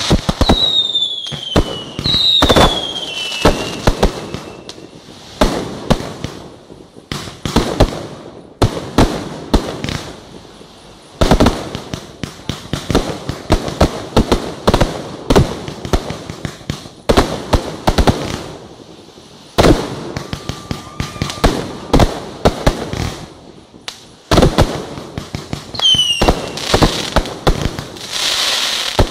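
Aerial fireworks display: a dense, continuous barrage of shell bursts and rapid crackling bangs. Whistling shells falling in pitch sound near the start and again near the end.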